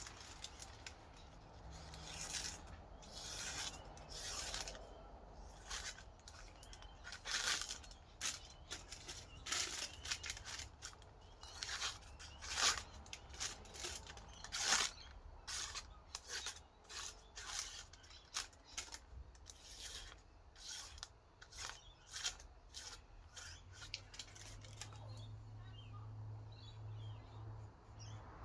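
Scandi-grind bushcraft knife slicing through tissue paper: a long run of short, quiet, irregular cutting and rustling strokes, testing the sharpness of the freshly stropped edge.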